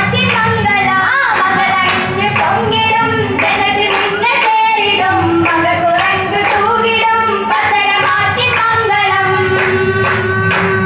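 A girls' chorus singing an Oppana song in unison through a PA, with the dancers' sharp rhythmic hand claps, which come thicker near the end.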